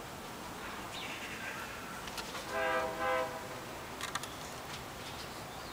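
A horn sounds two short blasts back to back about halfway through, each held at one steady pitch. A few faint clicks follow about a second later.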